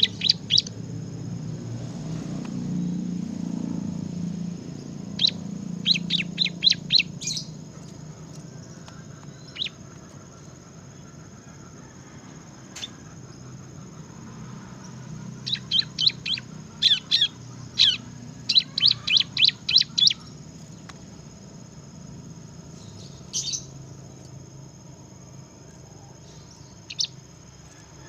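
Bar-winged prinia (ciblek) singing in quick runs of sharp, high chirps, several notes a second, with single chirps in between. A steady low hum and a faint, steady high whine run underneath.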